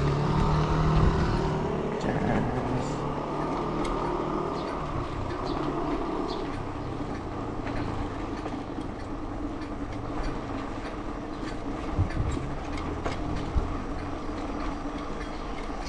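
Mountain bike rolling along a road: a steady rush of tyre and wind noise with scattered clicks and rattles from the bike, and two sharper knocks near the end.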